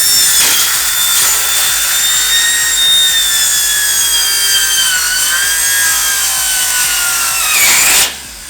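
A power saw cutting sheet metal roofing panels: a loud, high-pitched grinding whine whose pitch slowly sags under load. It stops abruptly near the end, and the blade is worn enough that a new one is wanted.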